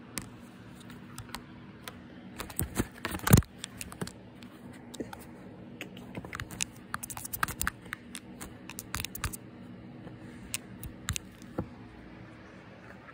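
Irregular clicks, taps and scratches of a cat's claws and paws on a plastic laundry basket, mixed with knocks against the phone, in two busy spells with the loudest knock about three seconds in.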